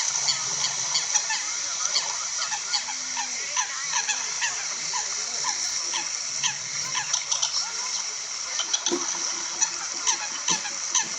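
A flock of Eurasian coots calling: many short, sharp calls that bend downward in pitch, overlapping at several a second, over a steady high hiss.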